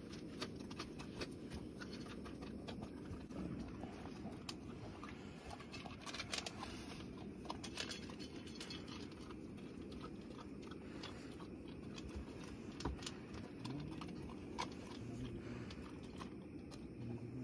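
A dog eating dry food from a stainless steel bowl: faint, irregular crunching and chewing, with small clicks of kibble and teeth against the metal.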